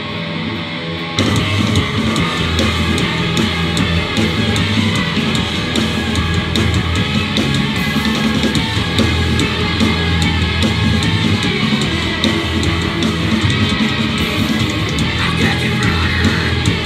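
Live band playing loud distorted electric guitars, bass guitar and drums, getting louder about a second in.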